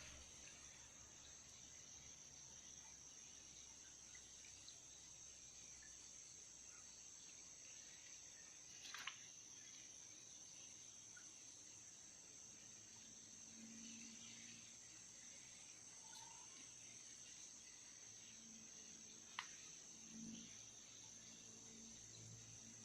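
Faint, steady, high-pitched chorus of crickets, broken by two short clicks about ten seconds apart.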